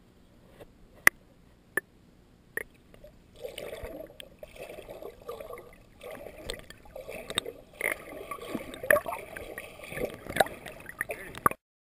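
Water sloshing and gurgling heard by a camera in its waterproof housing while it is underwater, muffled. Three sharp clicks come in the first three seconds; from about three seconds in, irregular churning water swells and falls until the sound cuts off suddenly near the end.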